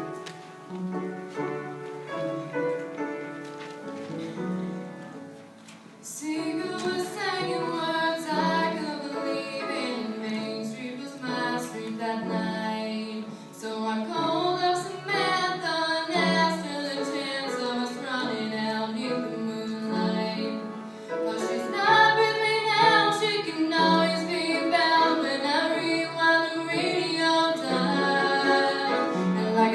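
A young woman singing a slow country ballad live, with instrumental accompaniment. The accompaniment plays alone at first, and her voice comes in about six seconds in.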